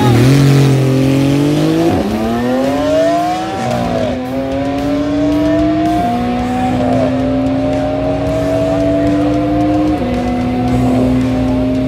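Porsche 911 launching from a standstill and accelerating hard away down a straight. It is loudest at the launch, then the engine pitch climbs in each gear and drops at four upshifts, the first two close together and the later gears held longer.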